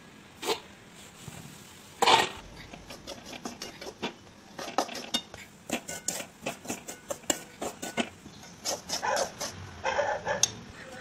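Metal spatula scraping and knocking against an iron kadhai while stirring and roasting crumbly semolina in ghee: a quick, irregular run of scrapes and clicks, with a louder clatter about two seconds in.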